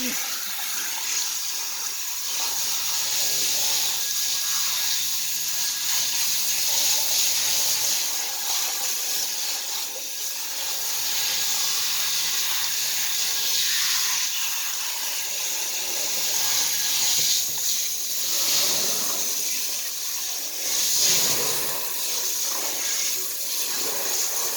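Water spraying steadily onto a dog's coat as she is rinsed off, a continuous hiss that swells and eases a little as the spray moves.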